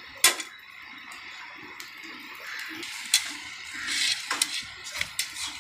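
Flatbreads cooking on a flat iron griddle: a light steady sizzle, with sharp metal clinks of utensils on the griddle, one loud just after the start and three or four more in the second half.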